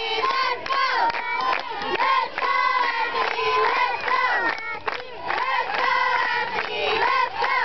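A group of children shouting and chanting together, many high voices overlapping with no break: little league players' cheers from the dugout while their batter is at the plate.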